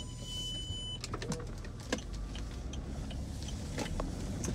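Car cabin sound: a low, steady engine and road rumble with scattered light clicks and knocks. For about the first second a steady high electronic warning beep from the car sounds, then cuts off.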